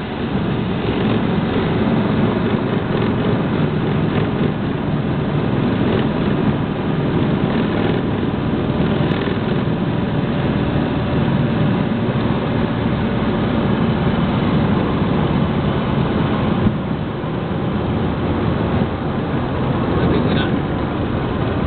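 Cessna Turbo 206's turbocharged six-cylinder engine and propeller running at low power as the plane rolls out on the runway after landing, a steady drone heard inside the cockpit.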